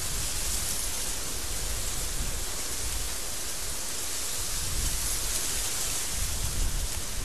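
Strong desert wind blowing steadily: a dense, even hiss over a low, gusty rumble.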